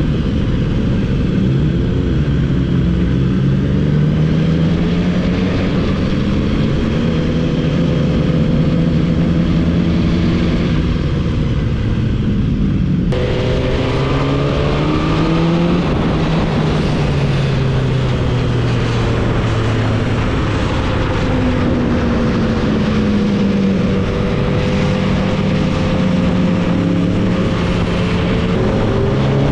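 Sport motorcycle engine running under way, its note rising and falling with the throttle and gear changes, with steady wind rush over the helmet-camera microphone. The sound changes abruptly about 13 seconds in.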